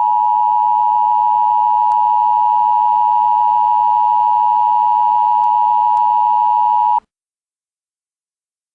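Emergency Alert System attention signal: the loud, steady two-tone alarm (853 and 960 Hz) held unchanged, then cutting off suddenly about seven seconds in, followed by silence.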